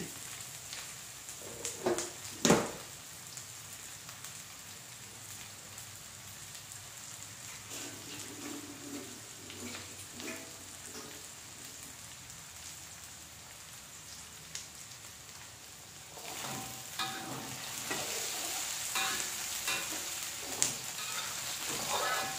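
Onions and diced potatoes sizzling in oil in a metal kadai, a steady hiss with small crackles. A couple of sharp knocks come about two seconds in. In the last several seconds a metal ladle stirs and scrapes through the pan, louder and busier.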